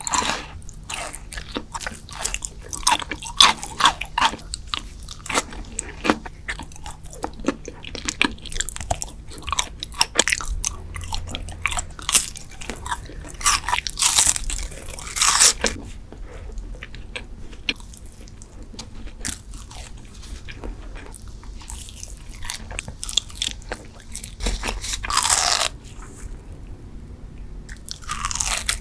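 Close-miked eating of sweet desserts: bites and crunchy, wet chewing in a dense run of clicks, with louder crunching bites about halfway through and near the end.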